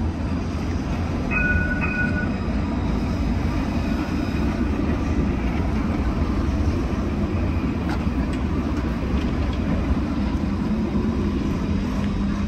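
Bordeaux tram running past, a steady rumble of wheels on rails and motors. A brief high two-note tone sounds about a second and a half in.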